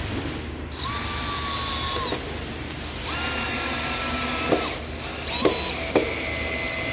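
Cordless drill drilling into stacked pine boards through the screw holes of a floor flange: four separate runs of a steady motor whine, the first two each over a second long and the last two short, with a few sharp clicks in between.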